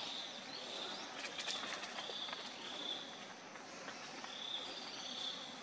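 Forest ambience: high-pitched chirping repeated in short phrases about every half second over a steady background hiss, with a few faint clicks about a second in.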